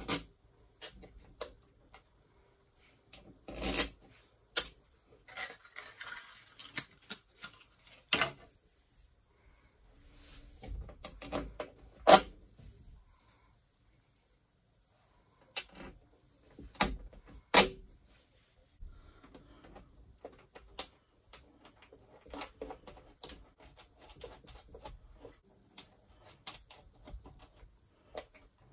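Small metal screws and hand tools clicking, clinking and knocking as they are handled and set down, in scattered sharp taps with several louder knocks. Crickets trill steadily in the background.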